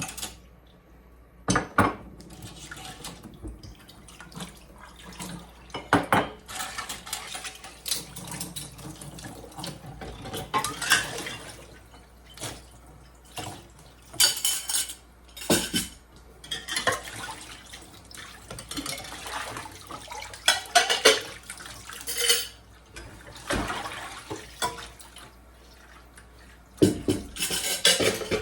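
Plates, pots and cutlery clattering and clinking as they are handled and stacked for a dishwasher, with stretches of running water in between.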